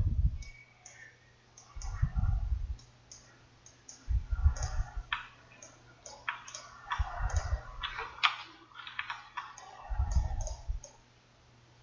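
Computer mouse clicking repeatedly, with a few dull low thumps every two to three seconds.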